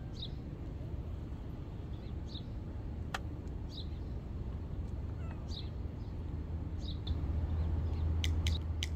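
Outdoor ambience: a steady low rumble, with faint short high-pitched chirps every second or two and a sharp click about three seconds in.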